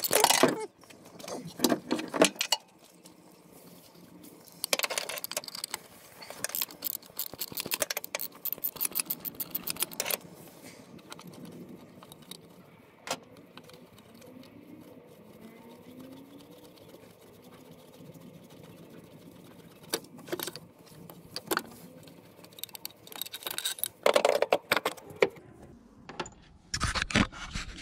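Ratchet wrench clicking and metal tools clinking against metal in several short bursts while bolts are undone, with quieter stretches between the bursts.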